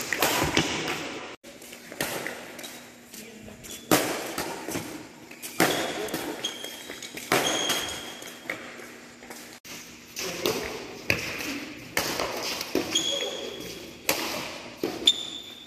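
Badminton rackets striking a shuttlecock in a rally, a sharp smack every second or two, the hardest one from a jump smash right at the start. Short high squeaks from sneakers on the court come between some of the hits.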